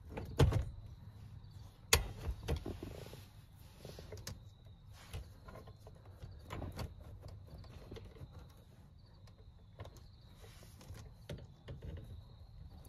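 Clicks and light clatter from the wire hooks and metal frame of a 2010 Honda Pilot power front seatback being hooked back together by hand. Two sharp clicks about half a second and two seconds in, then scattered softer clicks and handling noise.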